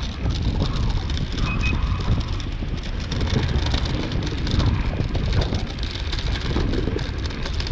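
Wind buffeting the microphone, a low, uneven rumble.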